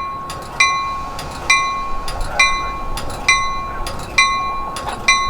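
Locomotive bell ringing steadily, struck about once a second, over the low rumble of a train.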